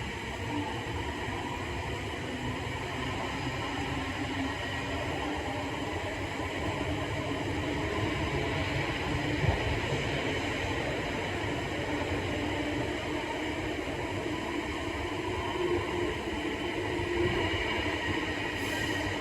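Inside a moving K set electric train carriage: a steady rumble of wheels on rail with a faint hum and a high whine, swelling a little partway through, and one sharp knock about halfway.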